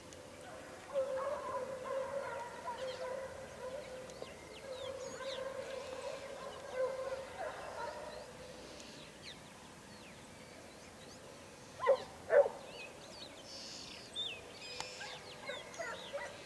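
Pack of hunting dogs baying in the distance while trailing a hare, a long wavering chorus, followed about twelve seconds in by two short, louder yelps.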